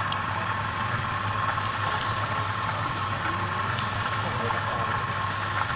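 Wood lathe running with a steady motor hum while a hand-held scraper cuts inside a spinning wooden vessel, the cutting noise coming and going as the tool bites.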